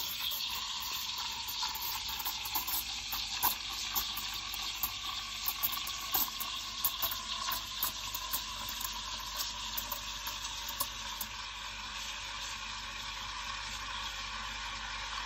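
Espresso machine steam wand hissing in a stainless steel pitcher of milk as the milk is steamed. Irregular crackling pops run through the hiss and thin out after about eleven seconds, leaving a steadier hiss.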